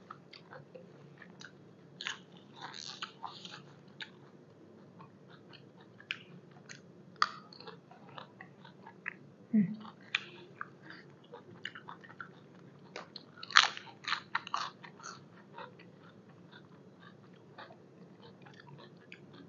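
Close-up chewing and biting of crunchy food: fresh raw vegetables eaten with koi sabai nang, a raw beef-tripe salad. It comes as irregular wet crunches and clicks, loudest about thirteen to fifteen seconds in, with a brief low hum from the eater near ten seconds in.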